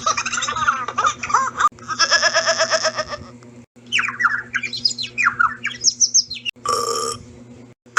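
A string of short comedic sound-effect clips cut one into the next: bird-like chirping and squawking, a fast pulsing buzzy trill, then a run of quick falling whistled chirps, ending in a brief burst.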